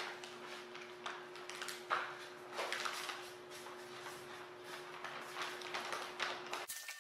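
Clear plastic zipper pouch rustling and crinkling as it is handled on a table, in a run of short irregular crackles and scrapes, over a steady low hum that cuts off near the end.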